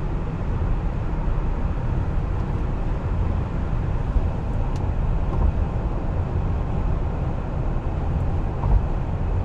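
Road and wind noise inside a Tesla Model Y's cabin at about 130 km/h, with slim Tesla roof bars fitted on the roof. It is a steady rushing noise, heaviest low down, with no engine note.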